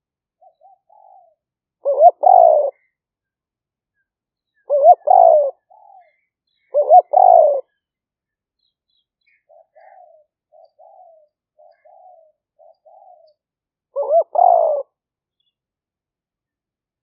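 Spotted dove cooing. Four loud, rough coo phrases come about two to three seconds apart, with a longer gap before the last. Quiet short coos sit between them: a few near the start and a run of about six in the middle.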